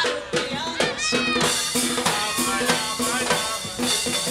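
Latin percussion music: a drum kit and a row of drums playing a fast, steady rhythm of sharp strikes, with pitched voices or instruments over it.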